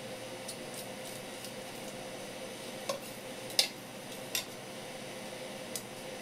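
Kitchen knife skinning a red gurnard (houbou) fillet on a wooden cutting board: scattered light clicks and taps of the blade and skin against the board, the sharpest about three and a half seconds in, over a steady background hiss and hum.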